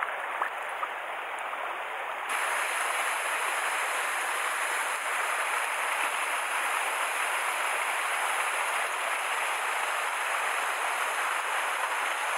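A mountain stream's water rushing in a steady hiss. About two seconds in, the sound changes abruptly to a brighter, slightly louder rush.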